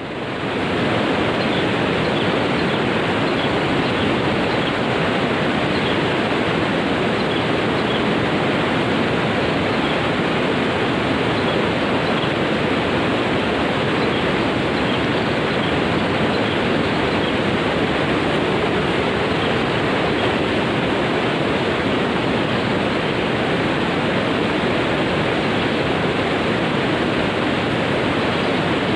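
Steady, loud rushing of water.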